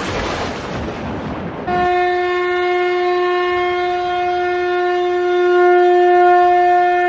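A rushing noise for under two seconds, then a conch shell (shankha) blown in one long, steady, unbroken note.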